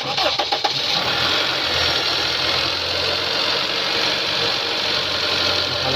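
Honda car engine idling steadily with a ticking from the valve train, which the owner takes for noisy valve lifters.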